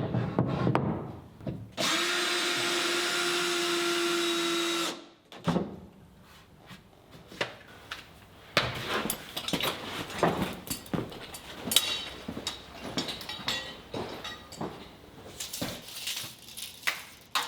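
A power drill runs steadily at one speed for about three seconds, then cuts off. Before and after it come scattered knocks and clicks from the work on the plywood.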